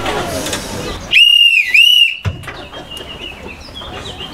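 Railway staff hand whistle blown in two quick, loud, high-pitched blasts run together, the station's signal to the park-railway train.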